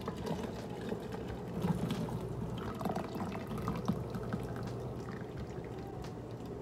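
Hot pasta water draining out of a colander of cooked pasta back into the pot, running and dripping steadily, so that the pasta water is kept.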